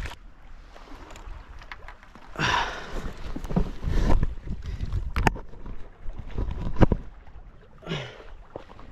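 Wind rumbling on an action camera's microphone, with scrapes, knocks and a couple of sharp clicks as the camera is handled and set down on the rocks.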